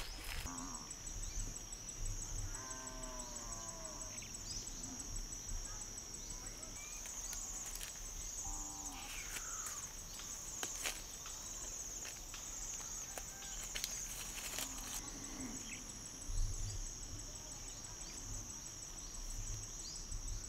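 Steady high-pitched drone of insects, with a goat bleating in a wavering voice twice, once about two and a half seconds in and again briefly near nine seconds. There are a few faint clicks.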